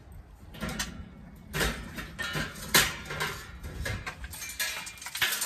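Irregular metal clanks and scrapes as a Weber chimney starter full of burning lump charcoal is gripped and lifted off the grill's charcoal grate, the lit coals shifting and clinking inside it. The rattling grows denser near the end.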